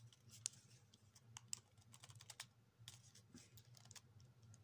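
Faint, irregular clicks and taps from a camcorder's buttons and casing being handled, over a low steady hum.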